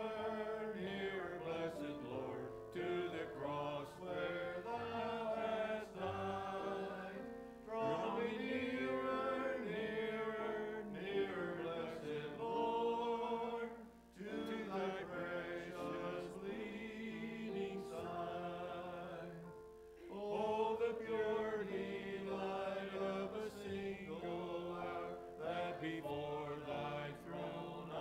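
Hymn singing led by a man's voice at the pulpit microphone: long held notes in slow phrases, with short pauses between lines.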